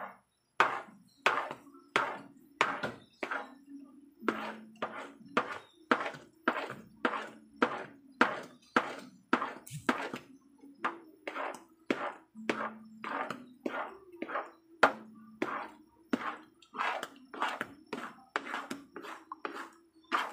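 A spoon or spatula stirring and scraping a thick mashed ube (purple yam) mixture around a cooking pan. The strokes come steadily, about two and a half a second, each a short scrape-and-thunk.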